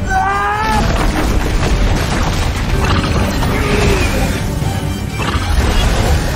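Dramatic film score under booming impacts and crashing sound effects of a battle between a water monster and green energy blasts.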